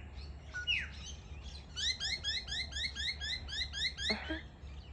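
Wild birds calling: one quick downward-sliding whistle, then a fast, even run of about a dozen repeated chirps, about five a second, ending in a harsher call about four seconds in.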